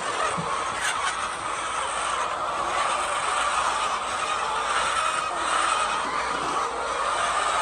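Machinery running steadily with a continuous rattling noise.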